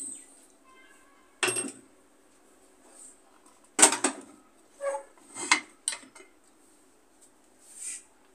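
Aluminium pressure cooker being opened: the whistle weight lifted off and the lid worked loose and taken off, a string of separate metal clanks and knocks.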